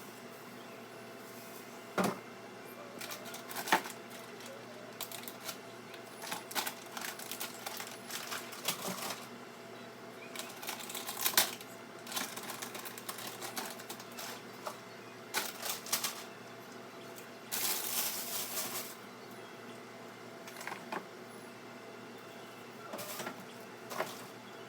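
Irregular clicks, knocks and clinks of food containers and jars being picked up, moved and set down while a fridge is reorganized, with a longer rustle, like plastic packaging, about two-thirds of the way in.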